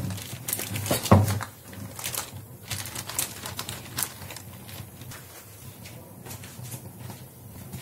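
Plastic bag crinkling and rustling as a wooden rolling pin presses dough flat beneath it, with the sheet then peeled away; the crackling is densest in the first half and thins out toward the end.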